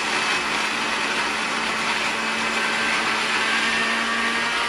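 Countertop blender motor running steadily at a constant level with a steady hum, blending a dry jar of crushed snack chips and gummies with only a little liquid. The mix is too dry to blend properly and needs more liquid.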